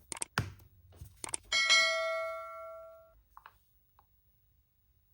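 A few short clicks, then a single bell-like chime from a smartphone's speaker that rings out and fades over about a second and a half.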